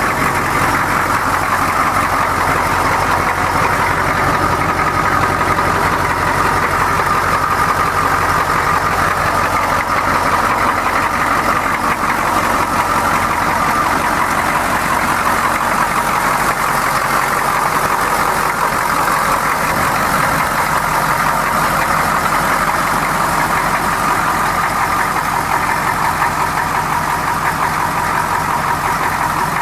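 The 6.2L Detroit V8 diesel of a 1984 M1008 Chevrolet pickup idling steadily.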